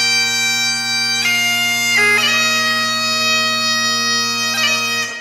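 Bagpipe music: a steady drone under a slow melody, with quick grace-note flourishes between the held notes. It stops and fades out near the end.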